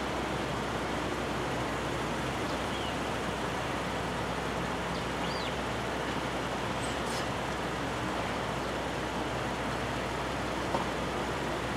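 Steady rumble from a passenger train standing at the station, with no crossing bell ringing. A few faint bird chirps come through above it, and there is a small click near the end.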